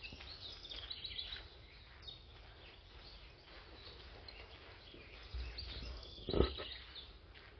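Small birds chirping in short scattered calls over a low outdoor rumble, with one sharp thump about six seconds in.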